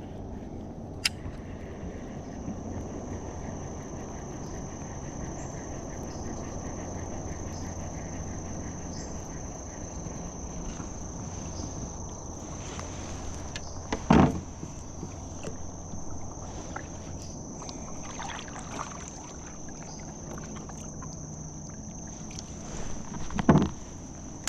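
Steady rush of fast-flowing creek current around a kayak, with two loud knocks against the boat, one about midway and one near the end.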